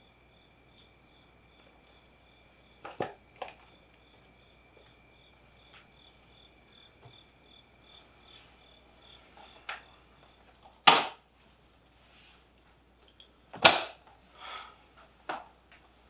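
Crickets chirping outside, a faint steady high trill with a pulsing chirp, cut off when a wooden front door is shut with a loud bang about eleven seconds in. A second loud thump follows a few seconds later, with a few small knocks around it.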